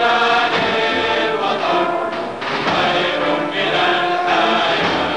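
Background music: a choir singing with accompaniment, in long held notes.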